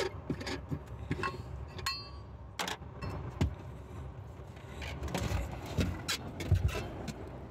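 Handling sounds of a spare wheel being freed from a car's boot well: the hold-down nut is screwed off its bolt by hand and the steel-rimmed spare tyre is shifted. It comes as a string of light clicks and knocks, with a couple of sharper knocks about two and a half and three and a half seconds in.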